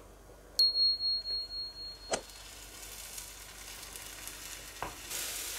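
Beaten eggs frying in butter in a nonstick pan. There is a faint sizzle that swells near the end as a wooden spatula pushes the eggs, and a couple of light spatula knocks. About half a second in, a high ringing chime sounds for about a second and a half, louder than the frying.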